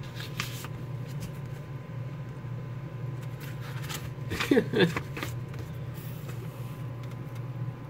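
Faint rustling and handling of paper as an envelope is opened and a brochure pulled out, over a steady low room hum. A brief murmured voice comes about halfway through.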